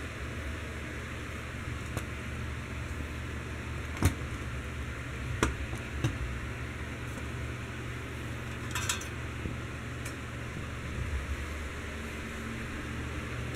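Scattered light clicks and knocks of hard parts being handled over a steady background hiss, with a short hissing burst about nine seconds in.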